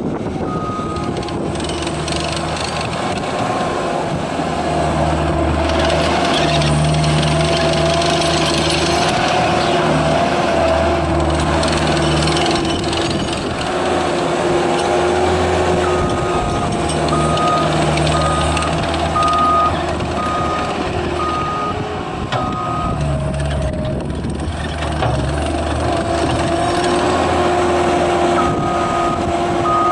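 Cat 257B compact track loader's diesel engine running as the machine drives and turns on its tracks, with a whine that rises and falls. Its reversing alarm beeps about once a second for several seconds past the middle, and again near the end.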